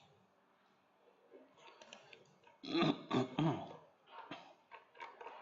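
A short, loud vocal sound from a person, about a second long, near the middle, with fainter scattered sounds after it.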